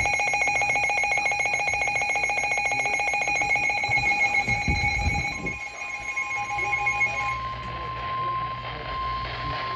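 A rapidly pulsing electronic alert tone sounds for about seven seconds. About five seconds in, a steady single-pitched tone near 1 kHz starts and overlaps it: the NOAA Weather Radio 1050 Hz warning alarm tone that comes before a new warning message.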